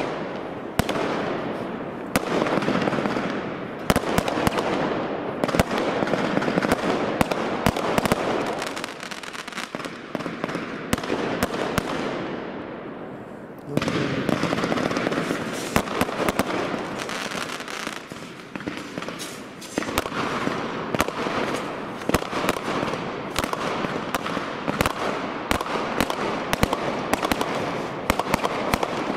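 Consumer firework batteries firing a finale barrage: aerial shells bursting in rapid, nearly continuous bangs and crackles. It thins briefly a little under halfway through, then a fresh volley starts abruptly.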